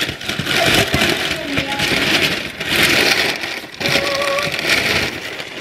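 Brown kraft paper wrapping being torn and crumpled off a cardboard box, in several loud crackling rips.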